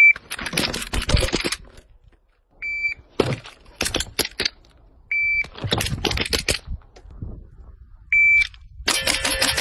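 Four short, high electronic beeps from a shot timer, each followed by a run of rapid gunshots. Steel targets are ringing during the last run, near the end.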